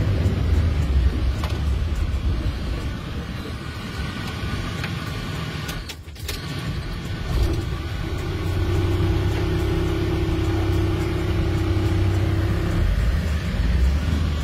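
Iveco Eurocargo truck's engine running under way, heard from inside the cab as a steady low rumble. A brief dip comes partway through, and after it a steadier drone joins the rumble for several seconds.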